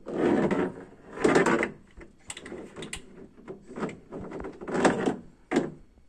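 Plastic toy trucks clattering and scraping against a plastic pickup-bed liner as they are handled, in irregular bursts with a few sharp knocks.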